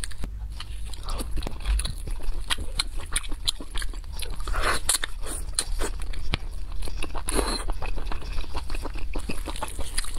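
Close-miked eating of glazed roast meat on the bone: wet chewing, biting and mouth smacks, with many small irregular clicks and crackles as the meat is pulled apart.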